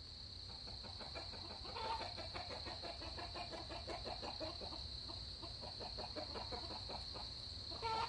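Chickens clucking, a run of short repeated calls that grows busier about two seconds in, over a steady high-pitched hum.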